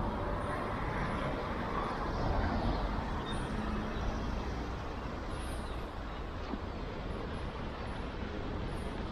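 Road traffic noise: motor vehicles running past on the street, a low rumble a little louder for the first few seconds and easing after that.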